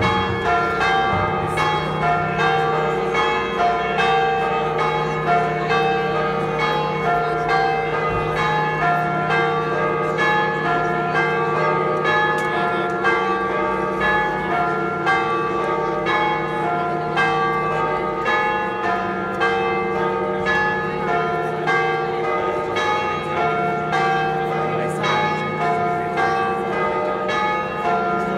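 Church bells pealing: several bells at different pitches struck over and over in quick, overlapping succession above a steady ringing hum.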